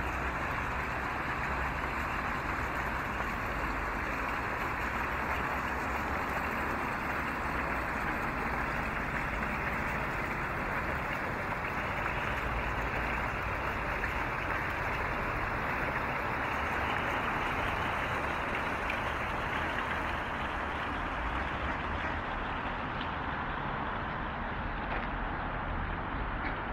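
Steady, even background rush of road traffic, with no distinct sounds standing out.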